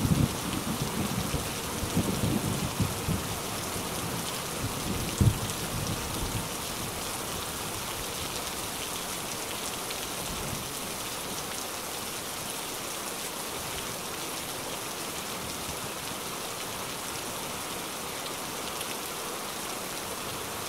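Heavy rain pouring, a steady hiss of rain on leaves and ground. A low rumble dies away over the first few seconds, with one short louder knock about five seconds in.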